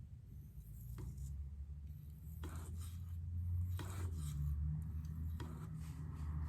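Several short scraping strokes of a K390-steel knife blade on a Venev 800F diamond waterstone, spaced about a second or more apart, over a steady low hum. These are light single passes to reduce the burr left by sharpening.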